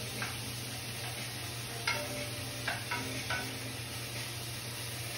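Spinach sizzling in sesame oil in a frying pan while a utensil stirs it, with a few light clicks of the utensil against the pan around two and three seconds in. The spinach has wilted down and is nearly cooked.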